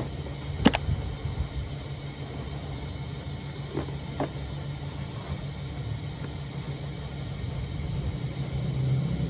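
A cardboard shipping box being handled and turned over, with a sharp knock about a second in and two softer knocks near the middle, over a steady low hum.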